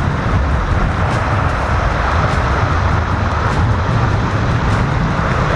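Sea surf washing and breaking against a rocky shoreline: a steady rush of water with a deep low rumble underneath.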